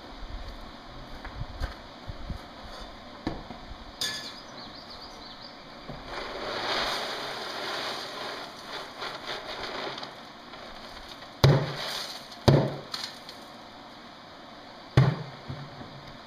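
Coal poured from a metal bucket onto a smoking forge fire, rattling and sliding for a few seconds, followed by three loud knocks, the second a second after the first and the third a couple of seconds later.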